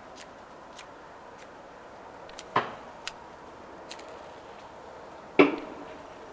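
Faint sharp ticks and two louder knocks, the second and loudest one near the end with a brief ring, from lighting and handling feather sticks and birch bark in a small metal firebox-style stove.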